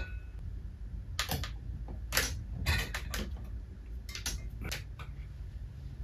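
Hand screwdriver driving screws into a ceiling fan's metal mounting plate and canopy: light, irregular clicks and taps of metal on metal, about ten of them, some in quick pairs.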